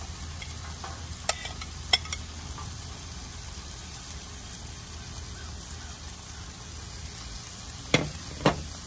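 Green beans and a flat-cut brisket sizzling in oil on a hot Blackstone flat-top griddle. There are a few light clicks in the first two seconds as the beans are tipped and spread on the steel, and two sharp knocks about half a second apart near the end.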